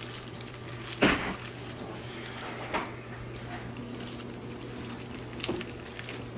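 Boxer puppies scrambling and playing on a tile floor, with a sharp knock about a second in and two fainter knocks later, over a steady low hum.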